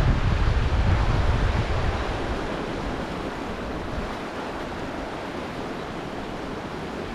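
Steady rush of stream water, with wind buffeting the microphone in a low rumble that dies away over the first two to three seconds.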